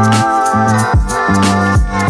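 Background music with a steady beat: deep kick drum and bass under sustained chords, with crisp percussion on top.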